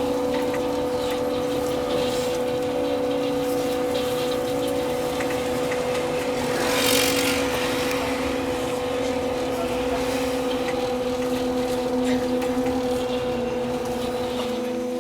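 A vehicle running with a steady electric hum in several held tones over a low rumble. A short hiss swells and fades about seven seconds in.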